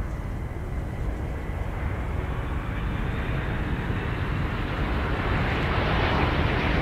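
Antonov An-225 Mriya's six turbofan engines on landing approach: a steady jet rumble with a faint high whine, growing gradually louder as the aircraft comes closer.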